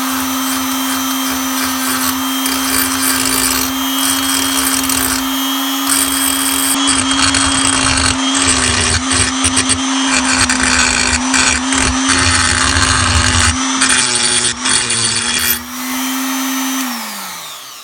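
Parkside PGS 500 A1 die grinder running with a steady high whine while its pink grinding stone deburrs and chamfers the angle-grinder cut on a metal bar, with a gritty grinding noise. The pitch wavers and dips as the stone bites, the motor slowing under contact. It winds down near the end.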